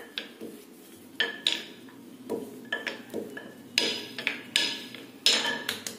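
Wooden rolling pin rolling and knocking against a granite countertop as parotta dough is rolled thin: irregular taps and clicks, a few ringing briefly, the loudest near the end.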